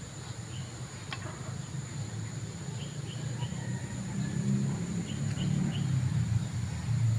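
Outdoor ambience: short high bird chirps, some in quick twos and threes, over a steady high insect drone and a low rumble on the microphone that swells toward the end.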